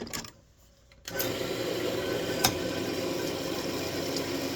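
A few light clicks, then a wood lathe's motor switches on about a second in and runs steadily with a constant hum, with one sharp tick partway through.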